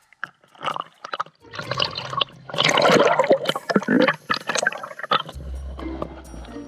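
Water splashing and gurgling in irregular rushes, loudest in the middle, with music coming in near the end.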